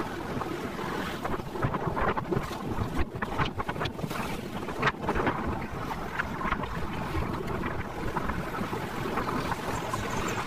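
Wind rushing over the microphone of a moving two-wheeler: a steady, noisy rumble, with a few harder gusts in the first half.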